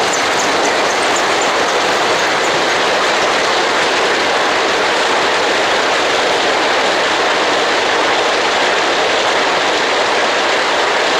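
G gauge model freight cars rolling past on the track, a steady loud running noise of wheels on rail.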